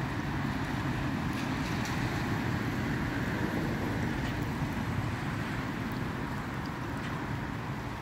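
Steady road traffic: cars passing on a wet road, a continuous hiss of tyres with engine rumble underneath.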